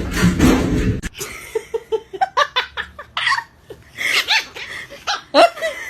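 A dense rush of noise cuts off abruptly about a second in. Then a person laughs in short, repeated bursts of giggling.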